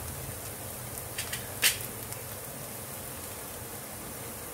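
Bitter gourd strips sizzling gently in coconut oil in a pan on low flame, a steady even hiss. A few sharp crackles come about a second and a half in, the last one the loudest.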